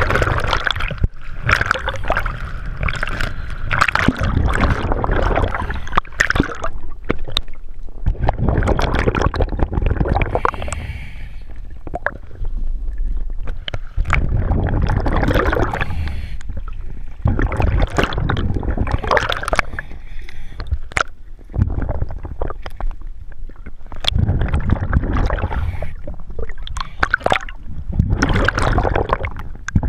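Water sloshing against the camera at the surface, then, underwater, a scuba diver's breathing: exhaled bubbles gurgling up in bursts every few seconds.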